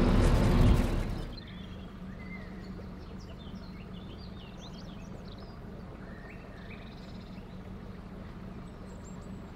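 Birds chirping and singing over the steady low hum of the narrowboat's engine as the boat cruises along. A louder rushing noise cuts off suddenly about a second in.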